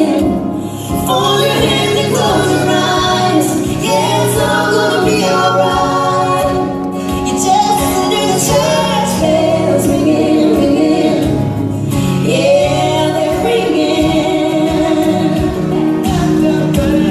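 A woman singing a country song with acoustic instrumental accompaniment, sung in a live acoustic arrangement.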